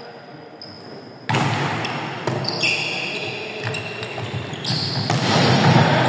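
Indoor volleyball rally on a wooden court: ball hits and shoes squeaking on the floor, echoing in the hall. It is fairly quiet for about the first second, then the play comes in suddenly and loudly.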